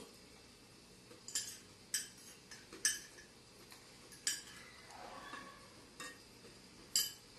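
Metal fork and knife clinking and scraping against a glass plate while food is cut and eaten: about six short, sharp clinks a second or so apart, with a softer scrape about five seconds in.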